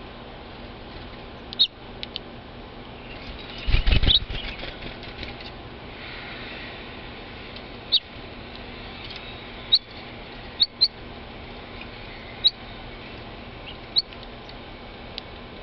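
House finches giving short, sharp high chirps, single calls a second or two apart, at a seed tube feeder. About four seconds in there is a brief loud flurry of thumps and rustling.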